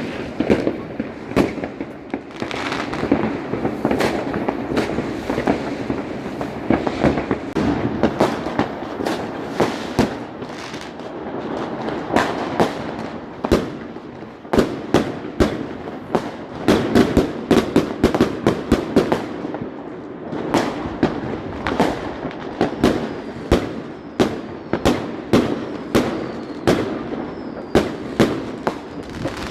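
Fireworks going off in a dense barrage of bangs and crackling. About halfway through, the bangs come more separately, one or two a second.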